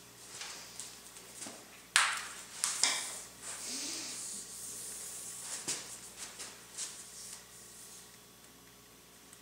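Handling noise from a soft tape measure being picked up and wrapped around a bare belly: rubbing and rustling with scattered sharp clicks, the loudest about two seconds in, quieter near the end.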